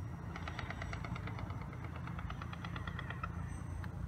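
Airsoft cannon on a radio-controlled AC-130 gunship model firing a fast burst, a rattle of about ten shots a second that stops about three seconds in, over a steady low rumble.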